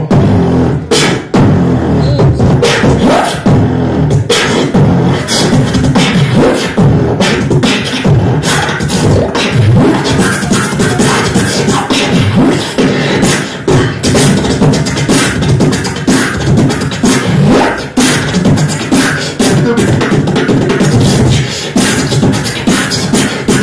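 Solo human beatbox amplified through a handheld microphone: rapid mouth-made kick, snare and hi-hat sounds over a low hummed bass line, without a pause.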